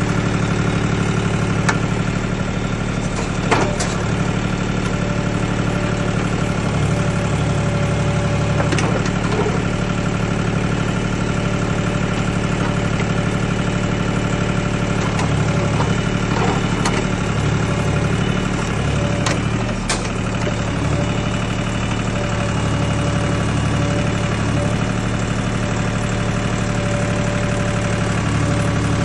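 Mini backhoe's engine running steadily, with a few sharp clanks scattered through, the loudest about three and a half seconds in.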